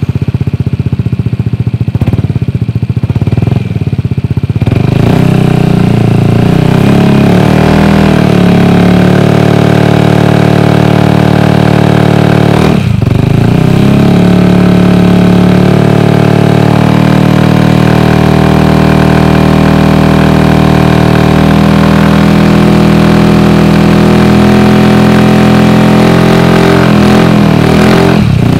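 Yamaha N-Max 155's single-cylinder engine running through a Remus RSC carbon slip-on exhaust with the dB-killer baffle removed, heard close at the muffler. The engine runs lumpy and lower for the first few seconds, then is held at higher revs with a steady note. The revs dip briefly and recover about 13 seconds in, and again near the end.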